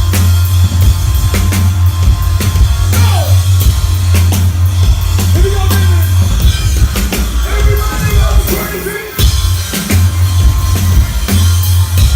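Loud live dance-pop music over a concert PA: a heavy, steady bass line and a pounding drum beat. The bass drops out for a moment about nine seconds in, then the full beat comes back.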